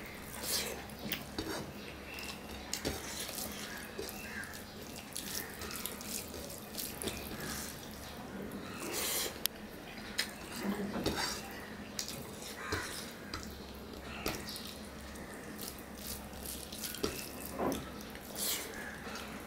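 Close-miked wet chewing and lip-smacking of rice and curry eaten by hand, in irregular small clicks and squelches, with soft sounds of fingers working the rice on the plate.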